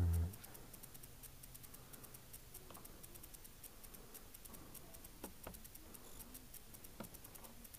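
A dull thump at the very start, then a few faint, sharp clicks of hand tools working a fastener on a motorcycle's fender extender, over a fast, faint ticking.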